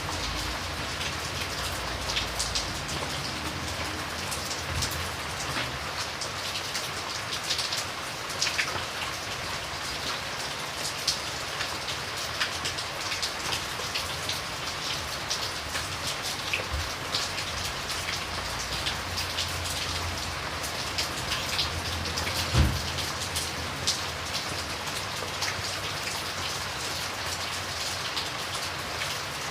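Steady rain falling, with many separate drop ticks over a continuous hiss. One louder low knock comes about two-thirds of the way through.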